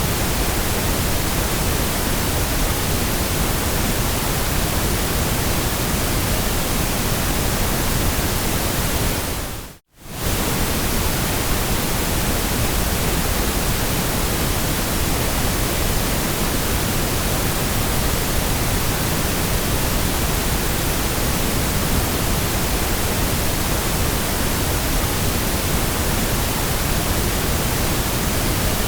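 Steady white noise, an even hiss across all pitches. About ten seconds in it fades out to near silence for a moment and comes straight back.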